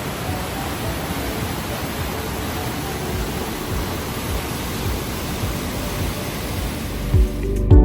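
A waterfall's steady rush of falling water, an even noise with no breaks. Near the end, music comes in with low beats.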